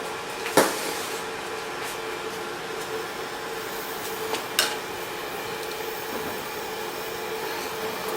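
Steady workshop machine hum, broken twice by a sharp metal clank about four seconds apart.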